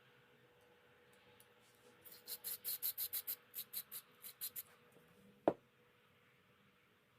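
Hand work on small carburetor parts: a quick run of about a dozen short, scratchy strokes, then one sharp click, over a faint steady hum.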